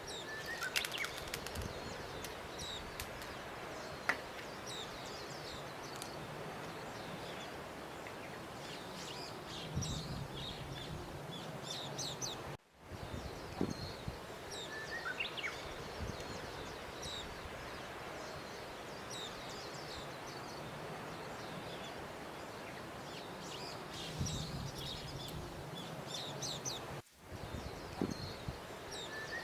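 Small birds chirping over a steady outdoor hiss, a nature-ambience track that loops, breaking off briefly and starting over about every 14 seconds.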